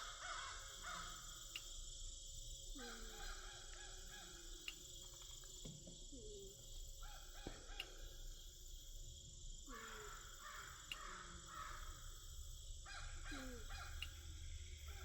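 A cat snoring faintly while blackbirds give short, falling calls every couple of seconds around her.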